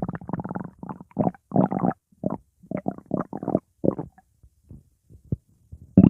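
Stomach growling: a run of short, irregular gurgles with brief gaps between them, thinning out to a few faint pops after about four seconds, then a louder, longer rumble begins at the very end.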